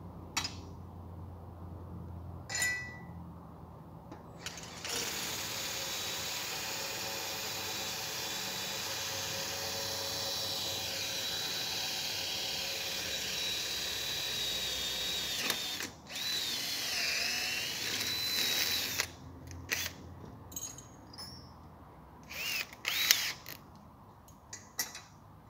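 Cordless drill boring into an aluminium door profile: one steady run of about ten seconds with a high whine, then a second shorter run whose pitch wavers. Clicks and light metallic clinks follow as the drill and aluminium parts are handled.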